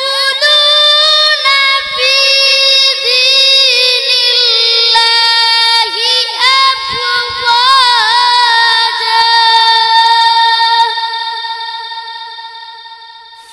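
A boy's voice reciting the Quran (tilawat) in the melodic style, drawing out one long ornamented phrase with rising and falling turns. The held final note fades away near the end.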